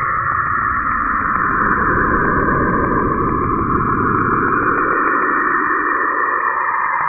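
A space recording presented as the sound of a planet: a steady, radio-static-like hiss with a fast, even flutter, muffled with no high end.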